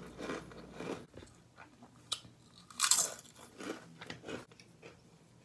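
Someone biting into and chewing Takis rolled tortilla chips, a series of separate crunches with the loudest about three seconds in.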